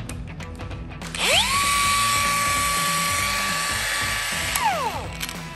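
Bosch GWS 180-LI cordless brushless angle grinder run with no disc fitted: about a second in the motor whines up quickly to a steady high pitch at no-load speed, runs for about three and a half seconds, then is switched off and winds down with a falling whine.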